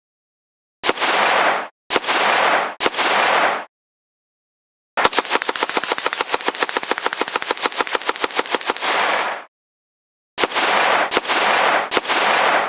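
Automatic gunfire sound effect for an AN-94 assault rifle: three short bursts, then a long rapid burst of about four seconds, then three more short bursts, each cutting off abruptly into silence.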